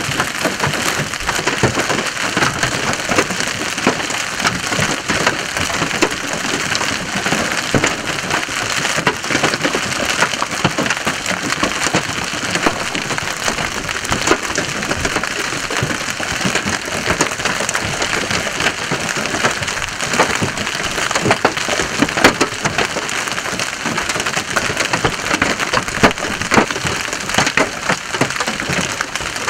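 Heavy hail and rain falling in the core of a supercell thunderstorm: a steady rush of rain peppered with many sharp knocks of hailstones striking.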